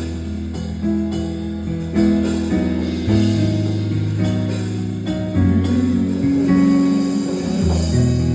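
Instrumental worship music led by guitar, with a prominent bass line under chords and a light beat.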